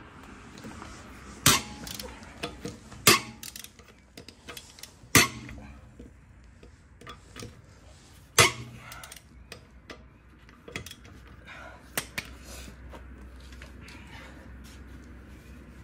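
Long-handled wrench working the wheel bolts on a VW Golf Mk4's steel wheel: four loud, sharp metallic snaps a second or two apart in the first half, then a few fainter clicks.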